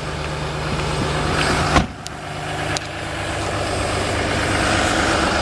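Cummins turbo diesel of a 2013 Ram pickup idling steadily, growing slightly louder toward the end, with a single sharp knock about two seconds in.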